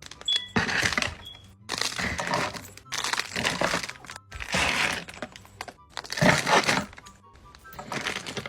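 Plastic packaging being handled as a fidget-toy order is packed: about six short rustling, crackling bursts, roughly one a second with brief pauses between.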